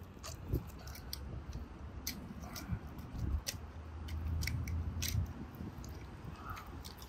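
Knife cutting a large raw catfish fillet away from its skin on a wooden cutting board: soft, wet slicing and scraping with scattered small ticks. A low hum swells and fades around the middle.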